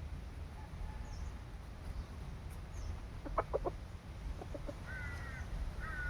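Rooster clucking: a quick run of short clucks about three seconds in and a few softer ones a second later, followed by two brief higher calls near the end.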